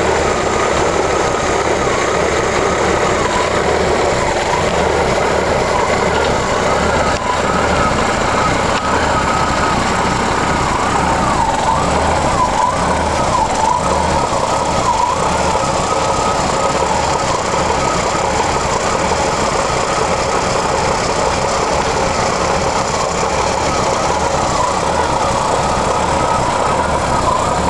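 1985 Jeep CJ7 engine idling roughly with a miss, heard up close at its Weber carburetor, running steadily at an even level. It is a cold start with the choke not working properly.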